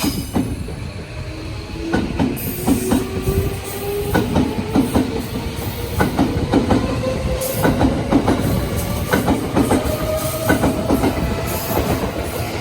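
Tobu Railway electric commuter train moving through the station, its traction motor whine rising steadily in pitch as it gathers speed, with a regular clacking of wheels over rail joints.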